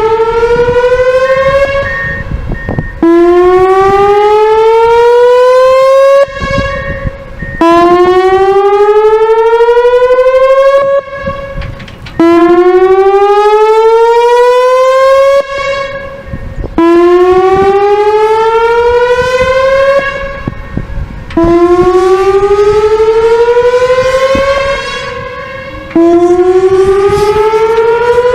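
Whelen Vortex R4 electronic tornado siren sounding a test: a loud tone that rises steadily in pitch over about three seconds, then drops back sharply and starts again, repeating about every four and a half seconds, with the loudness swelling and falling away on each sweep.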